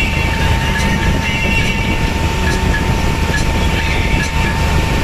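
Boat engine running steadily, a continuous low mechanical drone with a thin steady whine above it.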